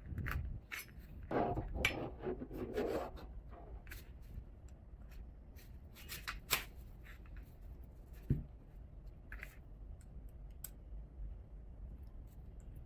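Lightsaber hilt parts handled during disassembly: scraping and rubbing for the first few seconds, then scattered sharp clicks, with a single knock about eight seconds in.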